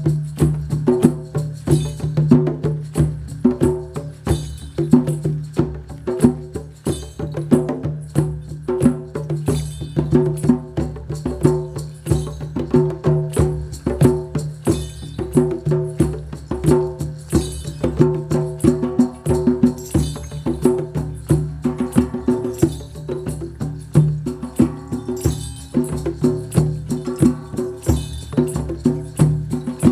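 Live improvised music: fast, dense percussive tapping over a steady low drone, with a held pitched tone above it.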